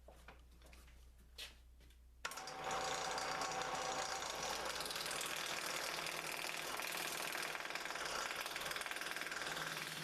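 A few light clicks, then about two seconds in a loud, continuous, rough cutting noise starts: a turning gouge roughing down a spinning hard maple firewood blank on a Shopsmith lathe.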